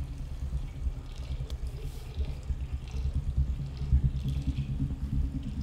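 Muffled running water, heard as a low, uneven rumble with faint drips.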